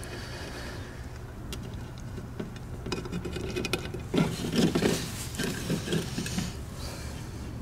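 Rubbing and rustling handling sounds as a finger smooths gasket maker around the edge of a stamped-steel Honda valve cover and the tube of gasket maker is picked up, busiest about halfway through. A steady low hum runs underneath.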